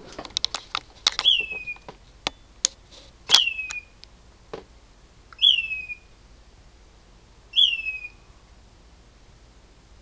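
A bird calling at night: a whistled call, each a sharp rise then a falling slur, repeated four times about two seconds apart. A few sharp clicks come in the first few seconds.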